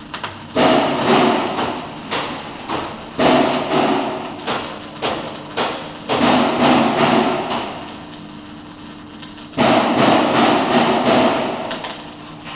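Arc welding in bursts: four runs of harsh crackling, each a couple of seconds long, starting and stopping abruptly. Between the runs a steady hum carries on, from the welding booth's fume-extraction fan.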